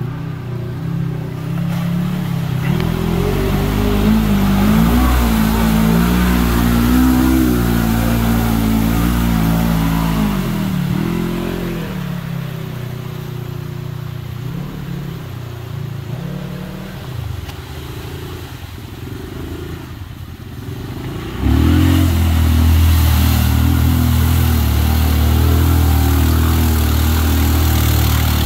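ATV engines revving up and down in deep mud. About three-quarters of the way through, a close ATV engine suddenly gets louder and holds steady at high revs while the quad sits bogged down in the mud.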